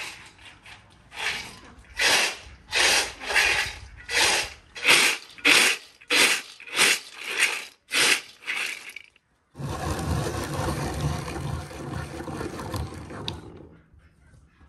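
Whole hazelnuts rattling in and spilling from a plastic bowl in about a dozen short bursts. From about two-thirds of the way through, a hand-cranked rotary grater grinds hazelnuts steadily for about four seconds, then stops.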